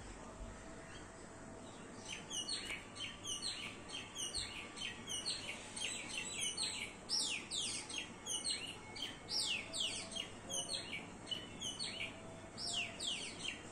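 Small flock of chestnut-tailed starlings chattering: quick, high tweets that slide downward, sparse for about the first two seconds, then coming thick and overlapping.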